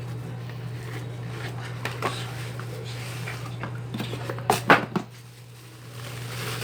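Plastic lantern casing and a screwdriver handled while screws are worked out: scattered light clicks and knocks, with a few sharper knocks about four and a half to five seconds in, over a steady low hum.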